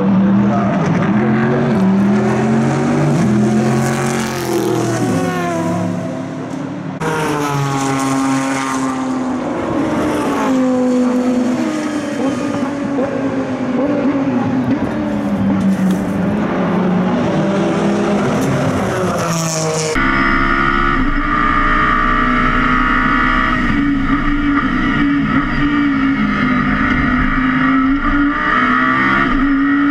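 GT race car engines at trackside, their note rising and falling through gear changes as the cars corner, with an abrupt switch to another pass about seven seconds in. About twenty seconds in it changes to the inside of the Audi R8 LMS, its V10 engine running as a steady high drone.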